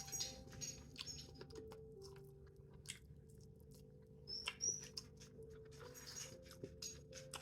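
Soft, close-miked chewing of seafood boil, with irregular wet mouth clicks and smacks.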